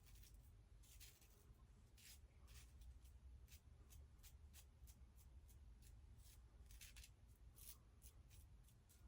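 Faint, quick scratchy strokes of an Ikon X3 slant safety razor's blade cutting through lathered stubble, roughly two or three strokes a second.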